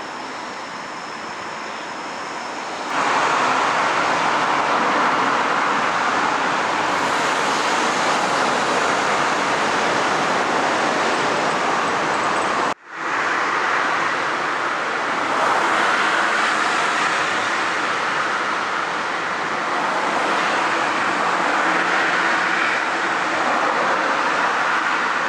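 Road traffic passing at speed: a steady rush of tyre and engine noise that grows louder about three seconds in and breaks off for an instant around the middle.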